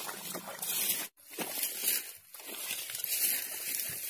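Close rustling and crinkling noise, with a sudden brief dropout to silence about a second in.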